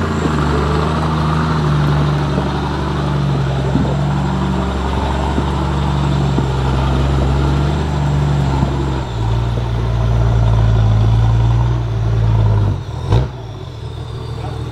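Toyota Land Cruiser HDJ80's turbo-diesel straight-six working steadily under load as the truck climbs a steep slope; its note steps down lower about nine seconds in. Near the end comes one sharp knock, after which the engine runs quieter.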